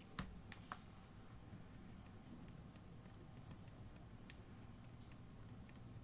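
Near silence over a low steady hum. A computer mouse clicks three times in the first second, then its scroll wheel ticks faintly now and then as the page scrolls.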